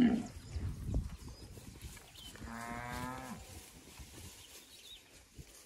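Cattle mooing: one steady, level-pitched moo about a second long, a little less than halfway through.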